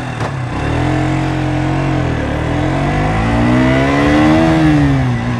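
KTM RC 125's single-cylinder four-stroke engine pulling away from a standstill and accelerating through the gears. The revs climb, drop at a gear change about two seconds in, climb again and ease off near the end.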